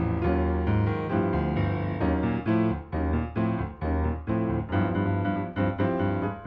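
Piano music with notes struck several times a second, the accompaniment laid over a silent film.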